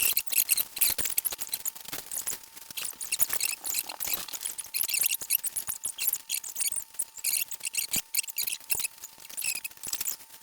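Small plastic building bricks clicking and clattering against each other as they are sorted by hand, a quick, uneven run of light clicks throughout.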